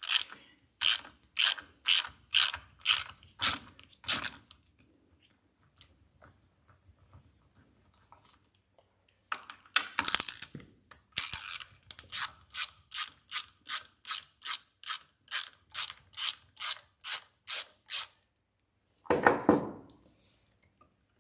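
Hand ratchet socket wrench clicking in quick, even strokes, about two to three a second, as the water pump housing bolts on a Yamaha outboard lower unit are run out. There are two runs of strokes with a pause of several seconds between them, and one short burst of a different noise near the end.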